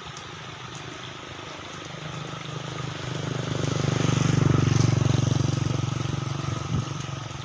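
A motor vehicle passing by: its engine hum grows louder over a few seconds, peaks around the middle, then fades away.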